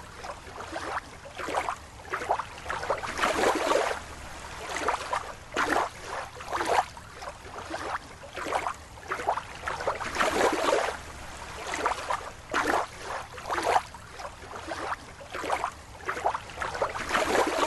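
Water sloshing and splashing in irregular swells, roughly one every second.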